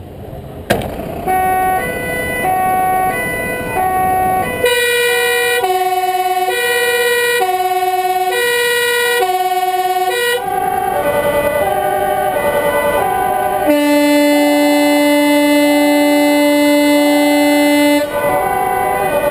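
Several emergency vehicles' two-tone sirens sounding together, each switching between a high and a low note, with the loudest starting abruptly about a second in. From about halfway the patterns overlap and waver, and one steady tone is held for about four seconds near the end.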